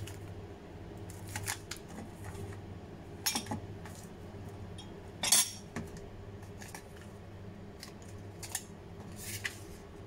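Snack packets and a paper price list being picked up and handled on a minibar tray: a handful of short crinkles, taps and clinks, the loudest about halfway through, over a steady low hum.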